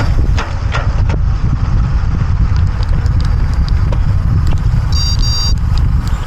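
Wind buffeting the microphone of a moving cyclist, a dense low rumble. There are a few sharp clicks in the first second and a brief high-pitched tone about five seconds in.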